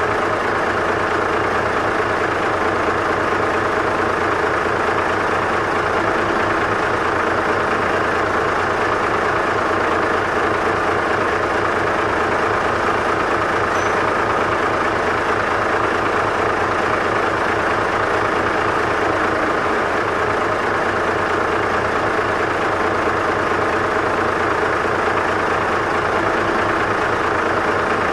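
Big cargo truck's diesel engine idling steadily, with an even, unchanging rumble.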